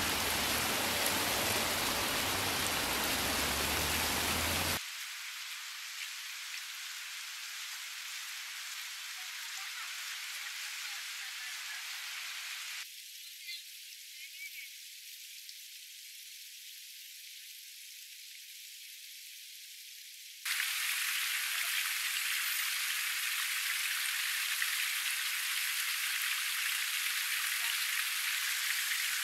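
Small waterfall splashing down a rock face: a steady rush of falling water. The sound drops abruptly about five seconds in and thins further near the middle, then comes back fuller about two-thirds of the way through.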